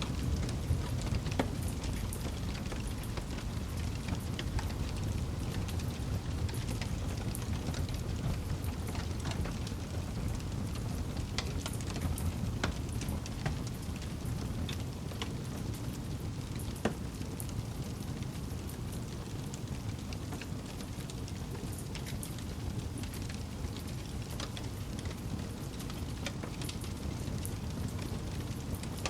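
Wood campfire burning: a steady low rush of flame with scattered sharp crackles and pops, one louder pop a little past the middle.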